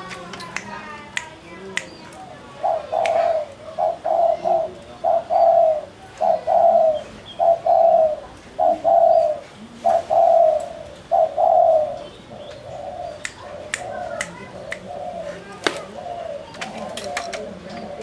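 Spotted dove (tekukur) cooing: a long run of short coos at about two a second, starting about three seconds in, loudest in the middle and fading toward the end.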